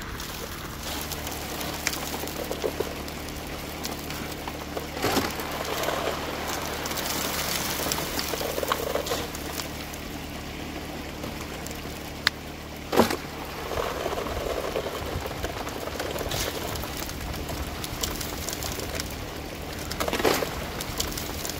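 Highbanker running: a pump engine's steady drone under water pouring and splashing through the hopper and sluice. A shovel hits gravel sharply three times, about five, thirteen and twenty seconds in.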